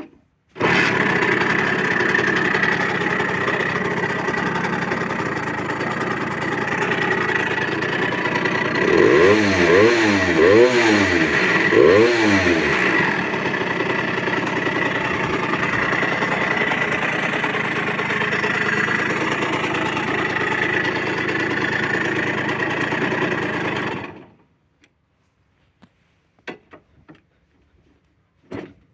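Simson KR51/1 Schwalbe's single-cylinder two-stroke engine, fitted with a 60 cc cylinder, running steadily after its overhaul. About nine seconds in it is revved up three times in quick blips, then it settles back to idle, and it stops abruptly near the end.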